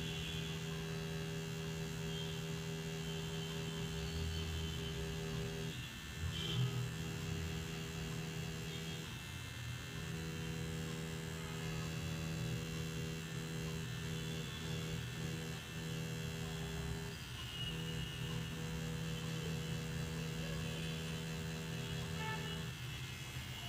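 Coil tattoo machine buzzing steadily as its needle fills in lettering on practice skin. The buzz breaks off briefly three times and stops shortly before the end.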